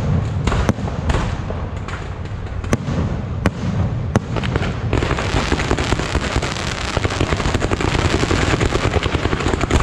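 Fireworks going off: a handful of separate sharp bangs for the first few seconds, then from about five seconds in a dense, continuous crackle that grows louder toward the end.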